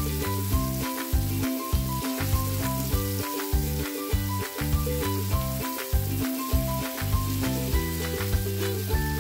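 Masala-coated fish pieces sizzling in shallow oil on a flat tawa, under background music with a steady beat.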